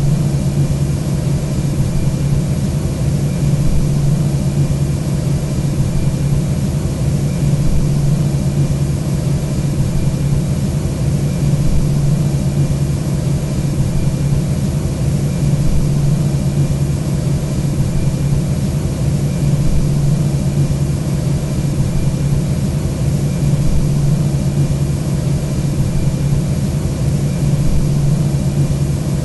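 Steady Airbus A320 cockpit background noise during a climb: an even drone of engines and airflow with a strong, unchanging deep hum.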